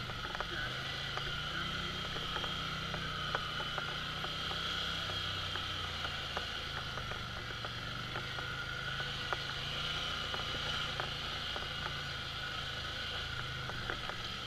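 Polaris Sportsman ATV engine running at low, slightly varying revs as the quad crawls over slickrock, with a steady whine over the engine note and scattered small clicks and knocks.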